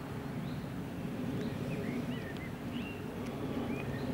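Small birds calling in short, quick chirps, several a second, over a steady low rumble.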